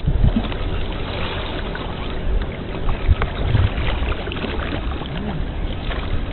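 Water lapping and trickling steadily, with a few dull low thuds.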